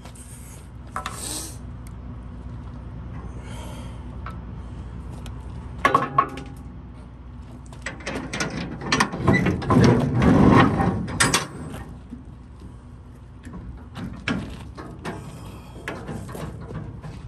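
Metal clanks, knocks and rattles of semi-trailer rear-door latches and lock rods being worked after the seals are cut, busiest a little past the middle, over a steady low hum.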